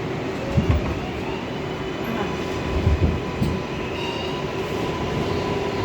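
R142A subway car running between stations, heard from inside the car: a steady rumble with a few held tones, and a couple of low thumps.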